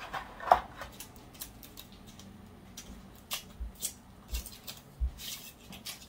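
Intermittent clicks and rustles of plastic packaging and a GoPro camera being handled as it is lifted out of its plastic tray, with the sharpest click about half a second in.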